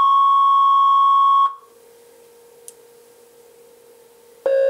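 Analog voltage-controlled oscillator (a 1222 Performance VCO) sounding a steady high note near 1 kHz for about a second and a half, then cutting off, as its tuning is checked across octaves during calibration. Near the end a new steady note about an octave lower starts, with a brighter, richer tone.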